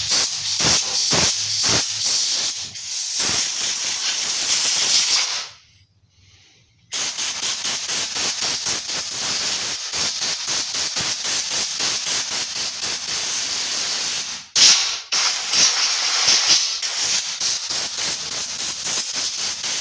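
Compressed air blowing out the oil pump area of a chainsaw: a loud, fluttering hiss that cuts off about five and a half seconds in, starts again a second or so later, and breaks briefly near fifteen seconds.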